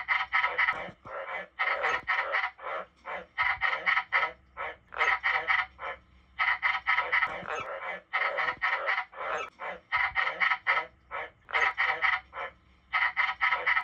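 Tree frogs calling: bursts of short, rapidly repeated croaks, several notes to a burst, one burst after another with brief pauses between.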